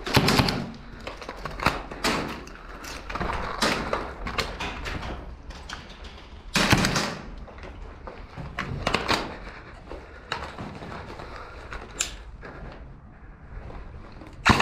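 Irregular scuffing and knocking of a player moving over a gritty, rubble-strewn concrete floor and handling gear, with several louder thuds, the loudest at the very start and about seven seconds in.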